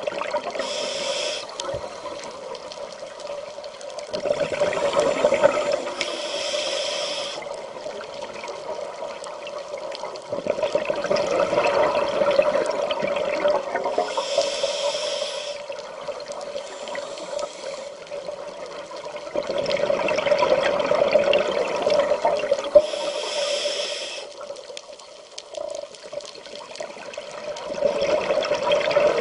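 Scuba diver breathing through a regulator, heard underwater: long gurgling rushes of exhaled bubbles about every eight or nine seconds, with short hisses in between, over a steady low hum.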